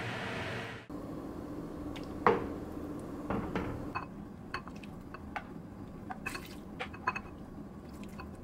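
Soup being ladled with a wooden ladle from a pot into a ceramic bowl: liquid pouring and splashing, with a series of sharp knocks and clinks of the ladle against the pot and bowl, the loudest a little over two seconds in. A steady hiss in the first second cuts off abruptly.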